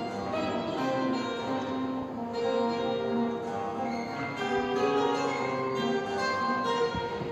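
Live instrumental music in a church, led by plucked strings with a guitar among them, playing a melody of held notes.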